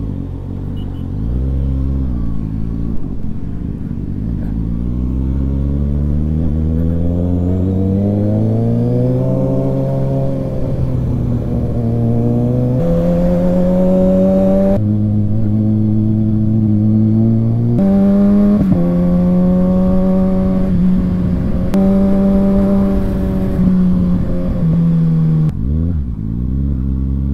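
Inline-four sport motorcycle engine pulling away and accelerating, its pitch climbing steadily, then running at higher revs with several sudden changes in pitch as the throttle and gears change.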